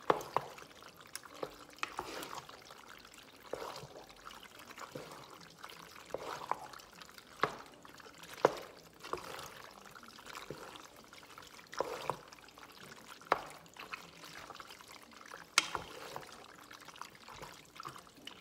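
A spoon stirring sauce-coated rigatoni in a pot: wet squelching and slopping, with irregular sharp knocks as the spoon strikes the pot.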